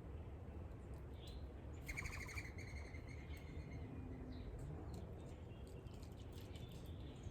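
Small birds chirping at a feeder: a quick run of chirps about two seconds in, with scattered fainter chirps, over a steady low background hum.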